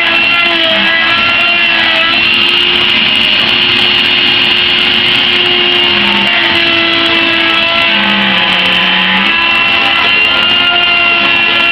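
CNC Shark router carving wood with a V-bit: the spindle runs steadily with a high whine, and lower tones shift in pitch now and then as the machine moves.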